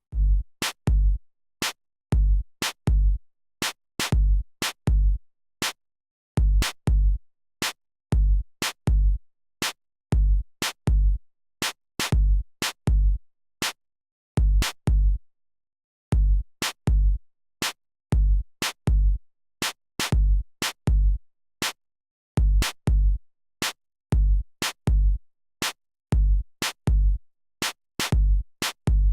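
Background music made of a bare electronic drum beat: sharp drum hits with a heavy low thump, about two a second in a repeating pattern with short breaks every few seconds, and no melody.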